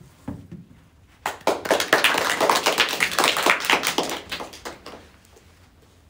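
A small group of people clapping, starting about a second in and dying away after about three and a half seconds.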